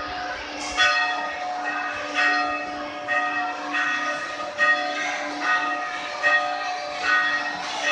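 Church bells pealing: a new strike about every 0.8 s, each ringing on over a steady hum from the strikes before.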